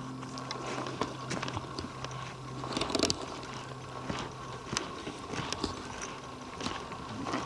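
Footsteps on forest floor litter, irregular crunches and snaps of dry leaves and twigs underfoot while walking slowly downhill, over a faint steady hum.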